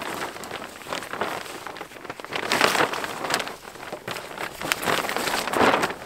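Plastic sheeting crinkling and rustling as it is handled, in irregular surges with scattered crackles, loudest about two and a half and five and a half seconds in.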